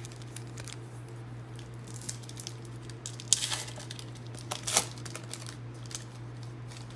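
Trading-card pack and cards being handled: light crinkling and small clicks, with two louder crinkly rustles about three and a half and about five seconds in.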